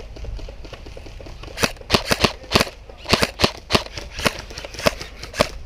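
Airsoft gun firing a string of about a dozen single shots, two to three a second at an uneven pace, each a sharp crack. The shots start about a second and a half in.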